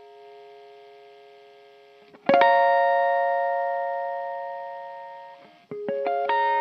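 Electric guitar played through a Nobels CHO mini chorus pedal. A fading chord is followed by a new chord struck about two seconds in and left to ring. Near the end come a few quick picked notes and another ringing chord.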